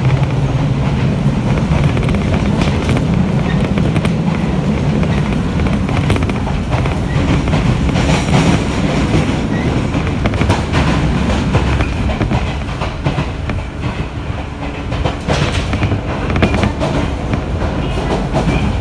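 Jōmō Electric Railway 700 series electric train (ex-Keio 3000 series) running at speed, heard from inside the car: a steady rumble of wheels on rail with scattered clacks from rail joints.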